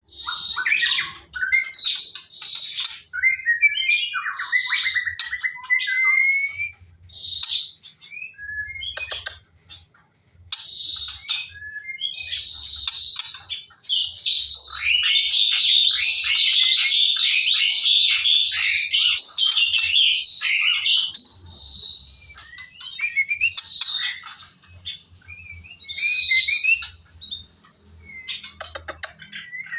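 A songbird singing loud, varied phrases of quick whistles, sweeping notes and rapid chatter, broken by short pauses, with one long unbroken run of song in the middle.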